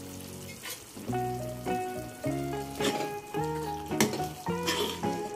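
Background instrumental music with a melody of held notes, over palak paneer gravy sizzling as it simmers in a pan and is stirred with a ladle, with a few sharp clicks about three to five seconds in.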